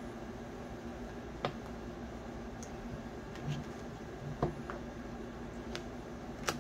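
Tarot cards being handled and laid down on a table: a handful of light, sharp clicks and taps, two of them close together around the middle, over a steady low room hum.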